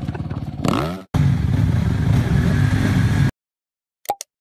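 Dirt bike engine running, its note falling away as the bike goes down in a sliding crash. After a brief cut, another stretch of motorcycle engine noise stops abruptly, followed by two quick clicks near the end.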